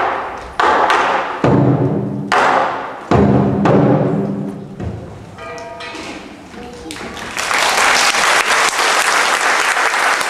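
Lion dance percussion of drum and crash cymbals closing with a few loud strikes that ring out and die away, then audience applause starting about seven seconds in and continuing.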